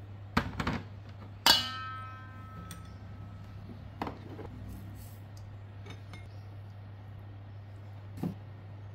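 Small glass bowls clinking and knocking against a stainless steel mixing bowl as ingredients are tipped into flour. One sharp clink about a second and a half in rings on briefly; lighter knocks come later. A steady low hum runs underneath.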